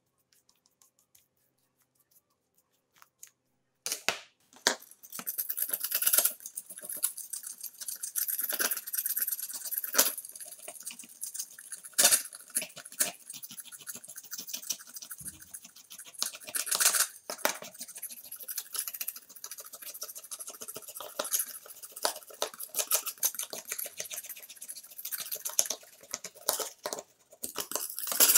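Metal scraper blade scraping softened black residue off a steel chainsaw guide bar in a metal tray: after a few near-quiet seconds with light taps, a continuous wet scratching with frequent sharp clicks of the blade on steel.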